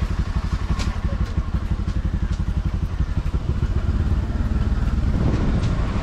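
Vehicle engine running while on the move, a fast, even throb that grows louder about five seconds in.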